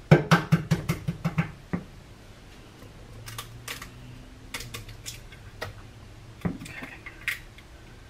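A quick, even run of about nine light clicks in the first second and a half, then scattered single clicks.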